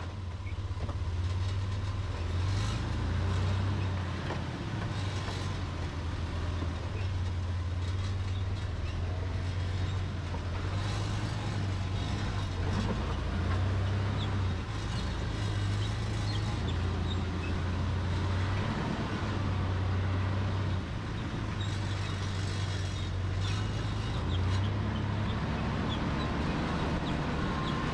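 Toyota Land Cruiser FZJ80's inline-six engine running at low revs as the truck crawls slowly over rock, its drone swelling and easing a little with the throttle.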